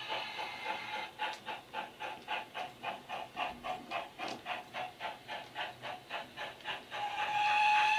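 DCC sound decoder in a Hornby OO gauge GWR King model steam locomotive, playing a GWR Manor steam sound file through two small speakers. A steam hiss at first, then even exhaust chuffs about three a second as the loco runs, and a steady whistle starting near the end, louder than the chuffs.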